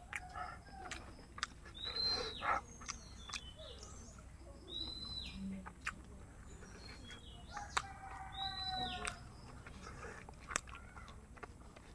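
A bird calls outside, a short high note that curves downward, three times a few seconds apart; a lower, longer call with several tones sounds about eight to nine seconds in. Faint clicks of eating run underneath.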